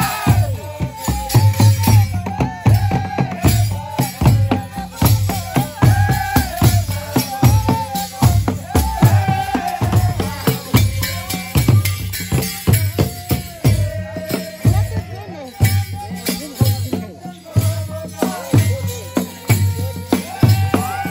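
Live Rwandan traditional drumming: tall hand drums beating a steady rhythm, with voices singing and chanting over them.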